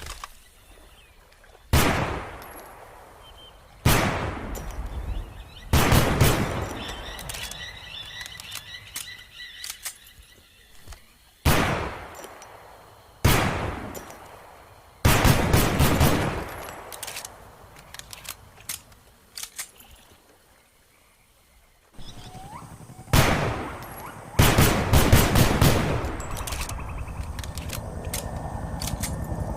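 Colt M1911 pistol firing, with single shots a couple of seconds apart alternating with quick strings of several rapid shots. Each shot has a long echoing tail.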